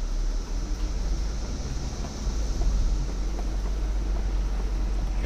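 Low, steady rumble of an off-road vehicle's engine running at low speed, growing a little louder about two seconds in.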